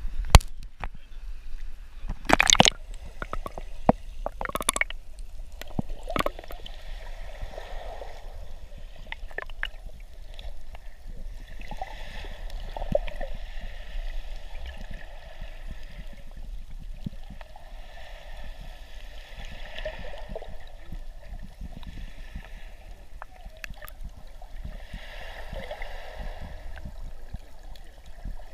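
Sea water heard through a camera held underwater: muffled gurgling and sloshing, with a few sharp splashes in the first five seconds as it goes in at the surface. After that the water noise swells and fades every few seconds over a steady low rumble.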